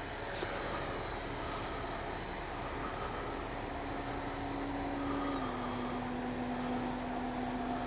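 Electric motor and propeller of an E-flite Piper Cherokee RC plane in flight, a steady whine that drops a little in pitch about five seconds in as the throttle eases.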